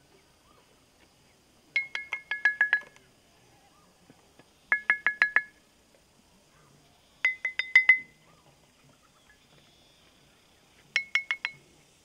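Xê Đăng stone lithophone (đàn đá) of natural stream stones being struck in four quick runs of rapid strikes, five to eight per run, each stone giving a short, high, clear ring. The runs sit on one or two close pitches, with pauses between them.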